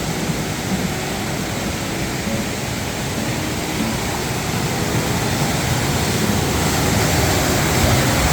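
Steady rushing noise of a waterfall or fast-flowing river, swelling slightly near the end.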